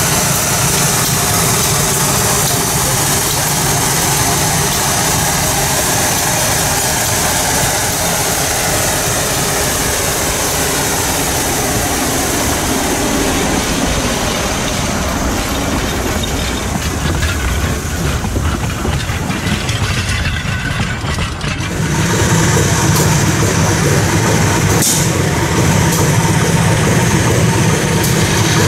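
Shay geared steam locomotive running slowly with its passenger cars: steady mechanical clatter and steam from the engine, with rail noise. The sound dips briefly and then comes back louder about three quarters of the way through.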